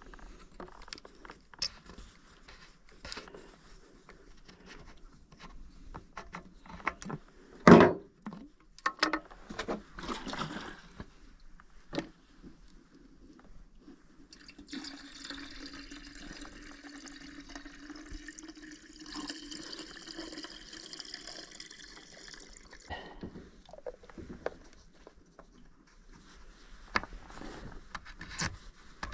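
Handling clicks and knocks of plastic tank caps on a Holzfforma chainsaw, then liquid poured steadily into the saw's tank for about eight seconds before it stops, followed by more clicking as the cap goes back on.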